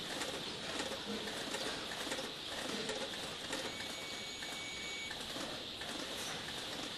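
Many day-old chicks peeping continuously as a dense, high chorus. About halfway through, a thin steady high tone sounds for about a second and a half.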